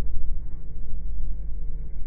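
Steady low rumble of a jet airliner taxiing, heard inside the cabin: engine and rolling noise, with a faint hum that fades in and out.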